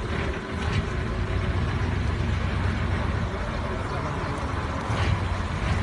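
A heavy truck's engine running under load as the truck wades through a fast river, with rushing, splashing water.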